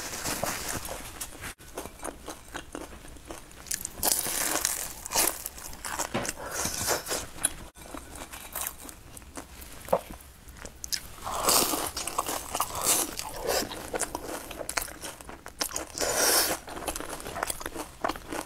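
Close-miked eating of a fried pastry: crunching bites and chewing, with louder crunching three times and many small clicks between.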